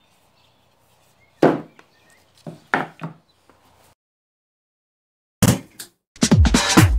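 Three sharp wooden knocks as a painted MDF board is handled on a workbench. Near the end, electronic music starts with two hard hits followed by a beat with falling bass sweeps.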